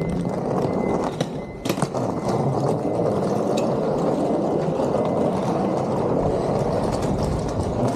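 Rolling suitcase wheels running over pavement in a steady rumble, with a few knocks and clicks in the first couple of seconds.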